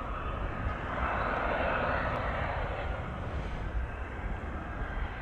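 Twin Pratt & Whitney PW615F turbofans of a Cessna Citation Mustang business jet running, a steady jet whine and hiss that swells louder about a second in and eases off again after about three seconds.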